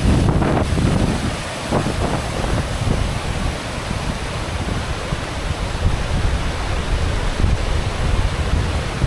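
Wind buffeting the microphone: a loud, steady rushing noise with an uneven low rumble.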